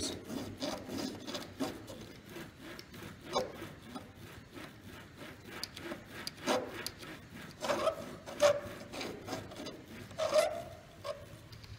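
Model railway wagon's wheels rolled back and forth by hand over a dry paper towel laid on the track, a repeated faint rubbing with small clicks. This is the drying step, wiping methylated spirits off the freshly cleaned wheels.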